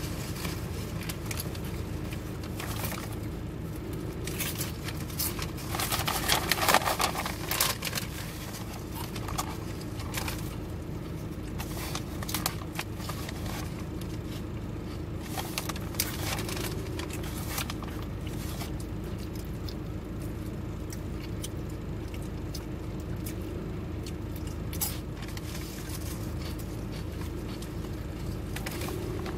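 Steady low hum of a car cabin, with scattered crackles, clicks and rustles from a crusty bread-roll sandwich being handled and chewed. A louder spell of rustling comes about six seconds in.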